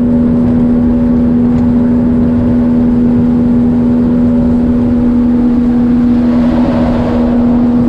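Boat motor running steadily under way: one steady droning pitch over rushing low noise.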